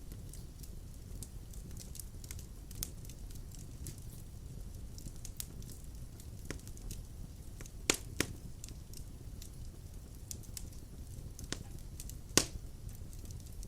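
Wood fire burning in a fireplace: a steady low rumble under frequent crackles. There are louder pops twice in quick succession about eight seconds in and once more near the end.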